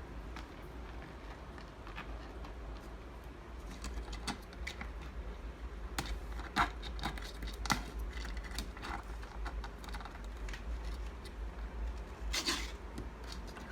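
Scattered small clicks and rustling handling noises, two sharper clicks in the middle and a short scrape near the end, over a steady low hum; no meowing.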